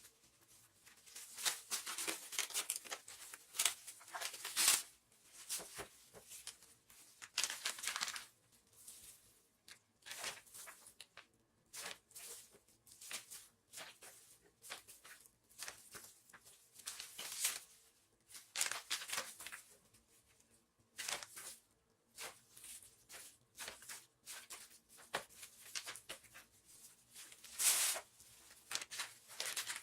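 Plastic food packaging crinkling, rustling and tearing in irregular bursts as meat is portioned and wrapped.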